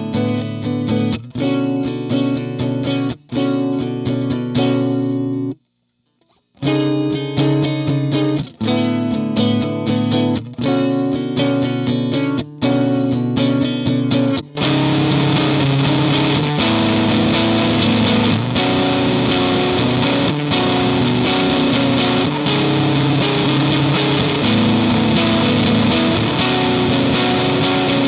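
Electric guitar (a Fender Thinline Jaguar through a Vox AC15 amp) playing chords through a Native Audio Pretty Bird Woman chorus/vibrato pedal. There is a short silence about six seconds in. About halfway through, the sound changes to a fuller tone that plays on without breaks.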